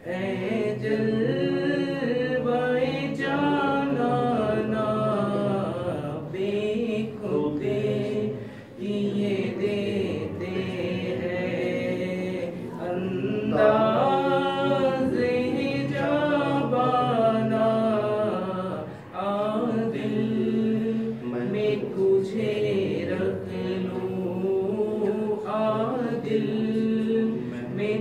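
A man singing an Urdu naat unaccompanied, in a melismatic, wavering devotional style, with short breaks for breath about a third and two-thirds of the way through.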